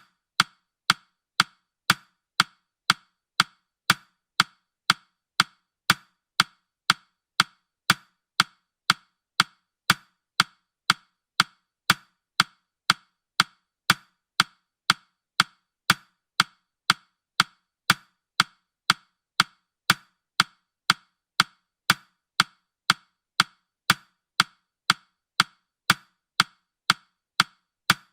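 Countdown timer's clock-tick sound effect: sharp, woody ticks at a steady beat of about two a second.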